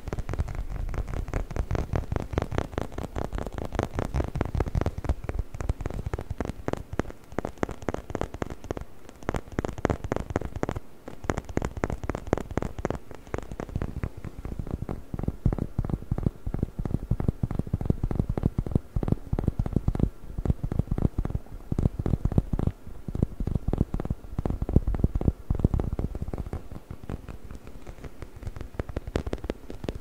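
Fingers rapidly scratching and rubbing the bumpy rubber surface of a squeaky rubber-chicken dog toy pressed close to the microphone: a dense, fast run of clicks and rubbing with heavy low handling thumps, and no squeak.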